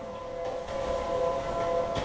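Outdoor storm-warning siren holding a steady two-note chord, with faint knocks under it.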